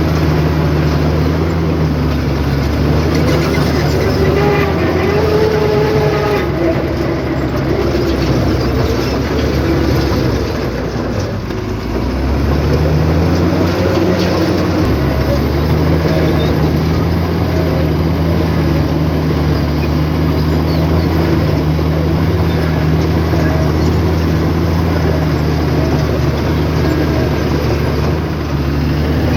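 Heavy diesel engine of earthmoving equipment running hard, its pitch sagging about ten seconds in and climbing back up a few seconds later, as under changing load.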